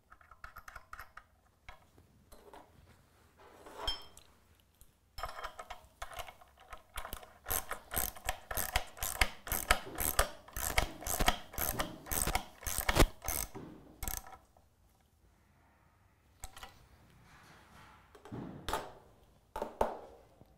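Hand socket ratchet clicking in a long run of quick strokes as a bolt and its hex nut are run down and tightened. Before the run there are a few scattered clicks, and near the end a few separate knocks.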